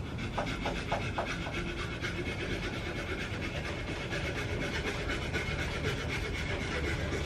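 Sandpaper rubbing against an American sweetgum bowl spinning on a wood lathe, a steady scratchy hiss with a fast, even flutter from the rotation and a few light clicks in the first second and a half.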